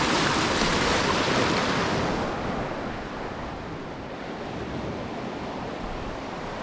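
Small sea waves washing in and breaking at the water's edge, a loud, even rush that fades about two seconds in to a duller, quieter one. Wind rumbles on the microphone throughout.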